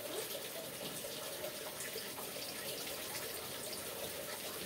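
Chopped onion sizzling steadily in hot oil in a wok.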